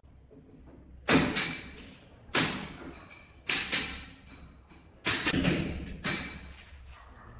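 A series of five sharp strikes, irregularly about a second apart, each dying away with a brief ringing tail.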